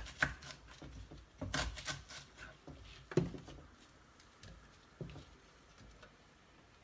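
Kitchen handling sounds of chopped onion being put into a container: a few scattered knocks with light rubbing and rustling between them, dying away after a few seconds.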